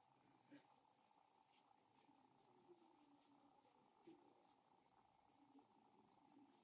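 Near silence: faint room tone with a steady high-pitched hiss, and a couple of very soft brief taps.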